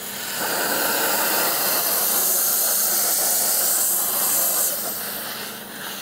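Thermofonte steam-and-vacuum cleaner's narrow nozzle hissing steadily as it jets steam and sucks at the same time along a window frame and its rubber seal, loosening and lifting the dirt. The hiss builds about half a second in and eases off near the end.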